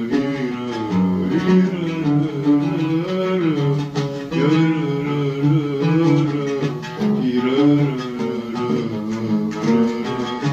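An oud played with a man's voice singing a winding Arabic melody over it. This is an informal rehearsal recording of a song with oud accompaniment.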